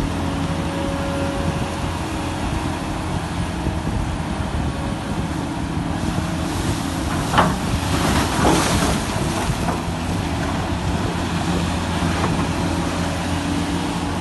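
Backhoe dredger vessel's machinery running with a steady low drone. About seven seconds in there is a sharp knock, followed by a rush of noise lasting about a second.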